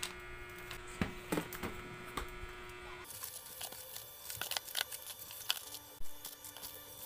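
Plastic grocery bag and snack and instant-noodle packets crinkling and rustling as they are handled, with a few light taps of packets set into a plastic storage bin after about three seconds, over a low steady hum.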